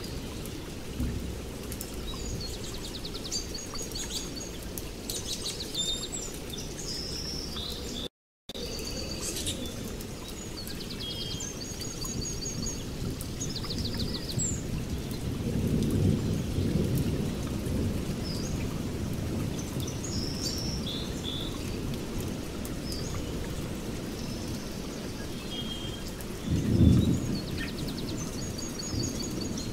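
Steady rain with rolling thunder: one longer rumble about halfway through and a shorter, louder clap near the end. Birds chirp and trill throughout. The sound drops out completely for a moment about eight seconds in.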